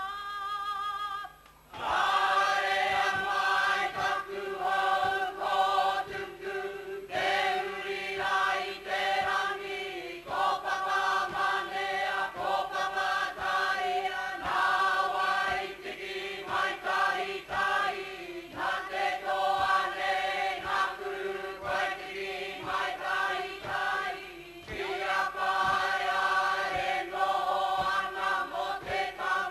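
Māori kapa haka group singing together, women's voices leading, in long phrases with short breaks between them. The singing starts about two seconds in, after a brief drop.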